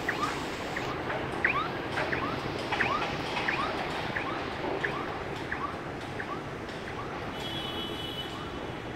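Small birds chirping, many short rising chirps a few times a second, over the steady background noise of city traffic.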